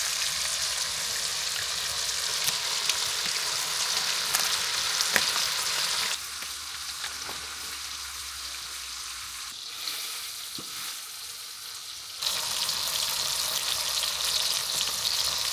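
Ribeye steak sizzling in hot fat in a frying pan, with a few clicks of a wooden spatula. The sizzle drops quieter about six seconds in and comes back up about twelve seconds in.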